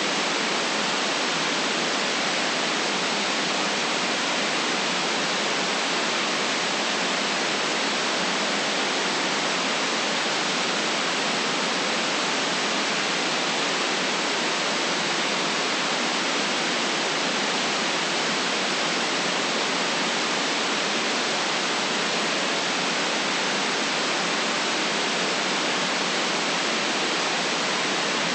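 Steady, unvarying hiss of generated white noise, filtered so it has no deep rumble and no very high treble.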